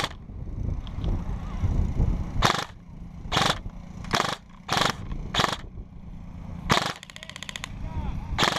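Airsoft guns firing: several single shots a second or so apart, then a rapid full-auto burst near the end.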